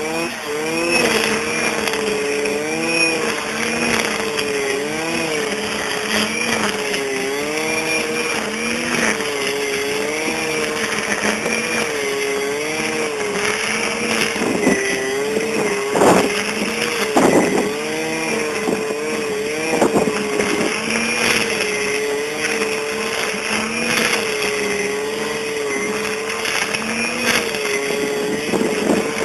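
Stihl FS 400 two-stroke brush cutter running at full throttle while cutting tall, thick grass. Its pitch dips and recovers about once a second as the cutting head sweeps through the grass. A few sharp cracks come about halfway through.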